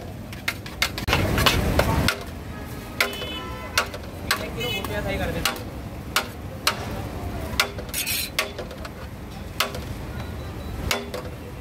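Metal spoon scooping rice out of a large aluminium cooking pot, clinking and scraping against its sides and rim in irregular sharp strikes.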